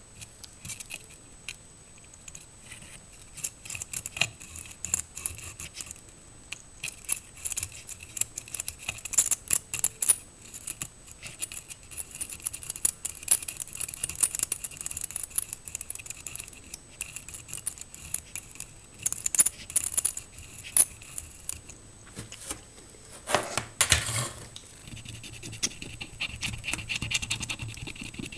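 Copper desoldering braid pressed and drawn across a circuit board's surface-mount pads under a soldering iron tip: an irregular run of small crackles, clicks and scratches as leftover solder is wicked off. A louder rustle comes near the end.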